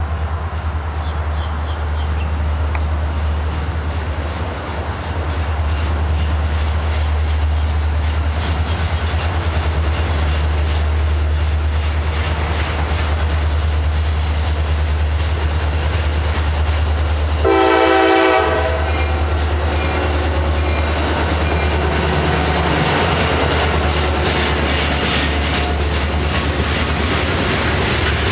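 CSX diesel freight train approaching over a steady low rumble, sounding its horn in one blast of about a second some 18 seconds in. Near the end the hopper cars' wheels clatter and click over the rail joints, growing louder as the cars pass.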